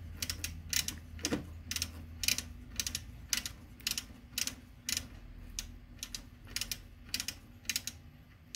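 A detented rotary knob on a Data Precision 8200 DC calibrator clicking step by step as it is turned, a few clicks a second, over a low steady hum.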